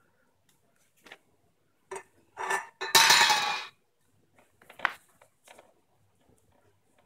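An aluminium drink can knocked about and rolling on a ceramic tile floor: a few light clinks, then a louder clattering roll of under a second about three seconds in, then a few more clinks.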